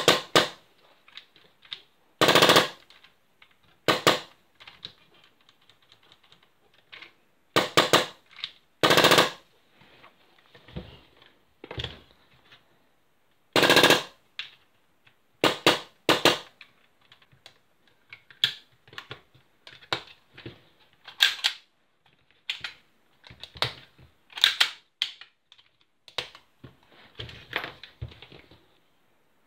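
Irregular clicks, clacks and knocks of an airsoft M4 rifle being handled and taken apart on a tabletop, with parts clicking against each other and the receiver knocking on the table. There are several louder clunks among the lighter clicks.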